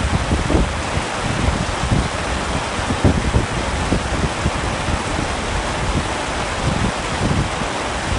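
Heavy rain falling on a tent: a steady, even hiss with uneven low rumbles running underneath.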